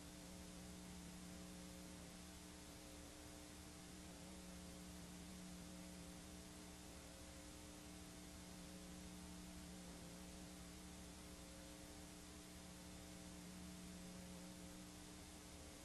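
Near silence: faint, steady tape hiss with a low hum, the noise of a blank stretch of videotape playing back.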